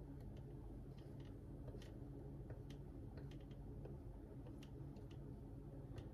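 Faint, irregular light clicks of a silicone spatula against a glass measuring cup as glaze is scraped out onto a loaf, over a low steady room hum.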